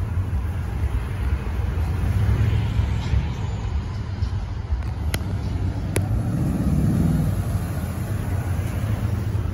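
Toyota Tundra pickups' V8 engines rumbling as the trucks roll slowly past one after another. Two sharp clicks come about a second apart midway.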